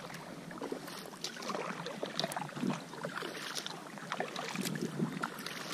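Kayak paddle strokes on calm water: the blades dip in and water splashes and drips off them in an irregular patter of small drops.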